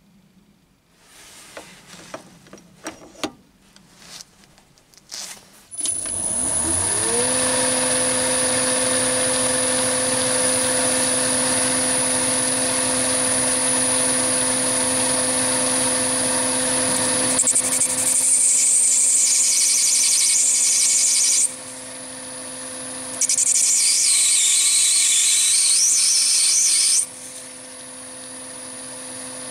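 Metal clicks and knocks of a tool holder being fitted to a lathe's quick-change toolpost. About six seconds in, the Chinese mini lathe's motor starts, its whine rising to a steady pitch as the spindle spins up. From about seventeen seconds a lathe tool cutting the spinning brass bar adds a high scratchy hiss, in spells with short pauses.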